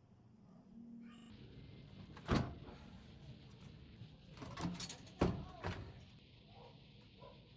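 Four sharp knocks and thuds, as of hard objects being handled or set down, over a steady hiss that starts about a second in.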